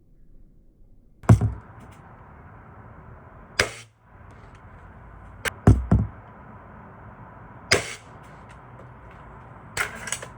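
.177 air rifle firing and being worked: a series of sharp cracks and clacks at irregular intervals, the loudest about a second in, with a quick cluster of three in the middle.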